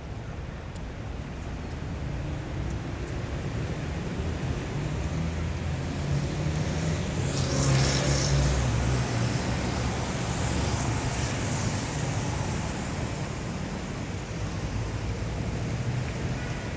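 Busy city street traffic: a steady wash of engine and tyre noise, with a vehicle passing close and loudest about eight seconds in.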